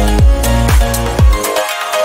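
Background electronic dance music with a steady kick drum about two beats a second; the bass and kick drop out briefly near the end before the beat returns.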